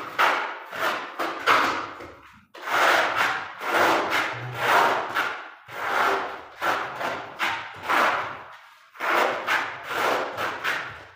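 Steel notched trowel scraping tile adhesive across a concrete floor in repeated rough strokes, roughly one to two a second, with short pauses about two seconds in and near the end.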